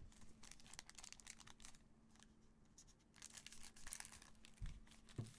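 Faint crinkling of a foil trading-card pack being handled and snipped open with scissors, in two spells of crackly rustling, with a couple of soft thumps near the end.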